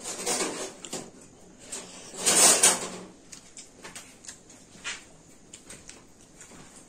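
Fingers mixing and scooping rice and potato curry on a metal plate, with soft scraping and clicking and one louder scrape a little after two seconds in.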